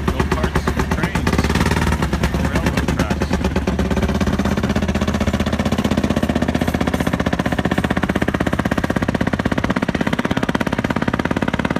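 Small engines of rail speeders (track motorcars) running as they drive along the track: a rapid, even putter of exhaust beats that grows slightly fainter near the end.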